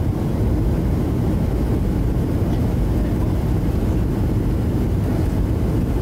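Steady, unbroken low rumble of a moving vehicle.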